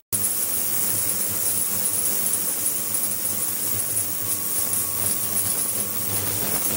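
Ultrasonic cleaning tank running with water circulating through it: a steady hum under a high hiss. The sound cuts out for a split second at the very start.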